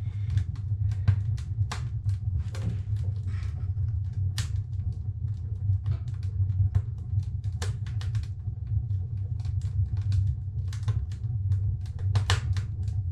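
Freshly lit wood fire burning in the firebox of a new Narvi 16 Black sauna stove: logs crackling with irregular sharp pops over a steady low rumble.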